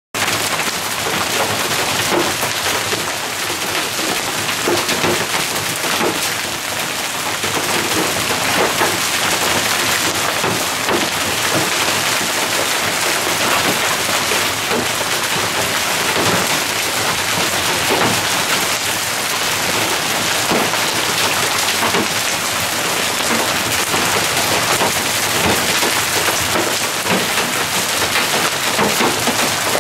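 Heavy hail coming down steadily, pelting the pavement and parked cars with a dense, unbroken patter of small hits.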